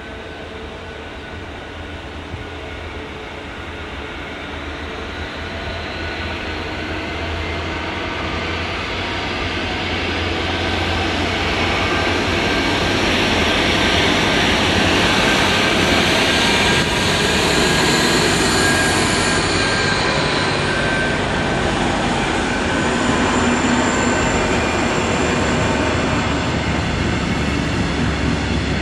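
DB Class 218 diesel-hydraulic locomotive approaching with its engine growing steadily louder, then running past at full loudness around the middle, followed by its double-deck coaches rolling by on the rails.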